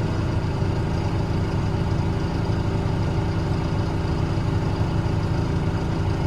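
Diesel engine of a Terex TLB840R backhoe loader idling steadily.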